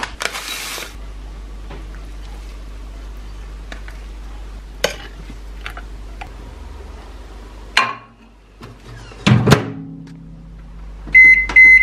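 Porridge being made with a microwave oven: a short splash of milk poured onto oats at the start, a few spoon and bowl clicks, a clunk of the microwave door about nine seconds in, and the microwave's steady electronic beep near the end.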